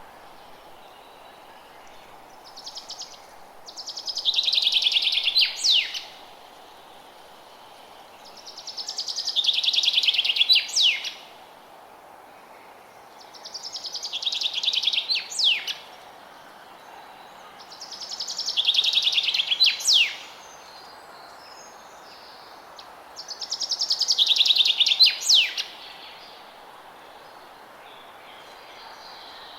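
A forest songbird repeating the same short song about every five seconds, five times. Each song is a rapid, high trill that swells in loudness over two to three seconds and ends in a couple of sharp down-sweeping notes. A steady faint hiss runs underneath.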